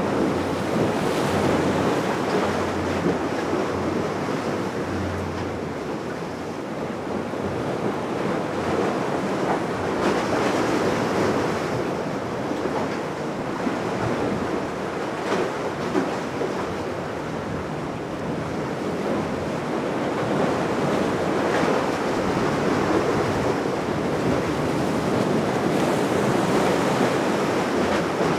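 Steady rush of wind and sea surf, with wind buffeting the microphone.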